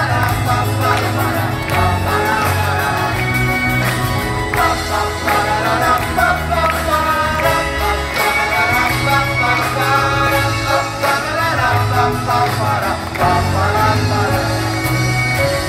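Live pop-rock band with acoustic guitars, electric bass, drums and a string orchestra playing a song with sung vocals.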